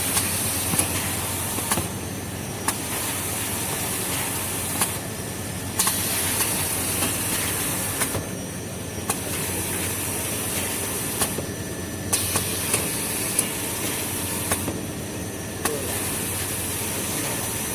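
Industrial tissue paper log saw cutting machine running steadily, with a high hiss that switches on and off every second or two and scattered sharp clicks.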